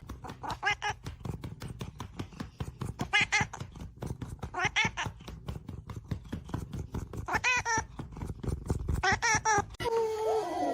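Laughter in about five pitched bursts, with quick breathy puffs between them. Near the end it cuts off suddenly and music with gliding tones begins.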